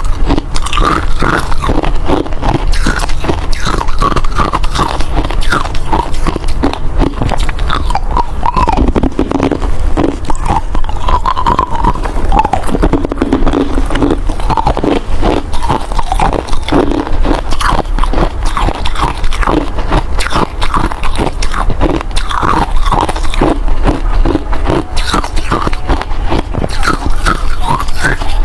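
A person biting and chewing hard ice, a dense run of loud, irregular crunches close to the microphone.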